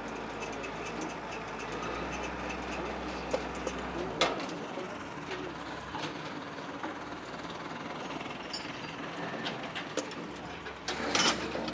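Work-site background noise: a steady low hum that stops about four seconds in, a few scattered sharp clicks, and a brief louder rustle or scrape near the end.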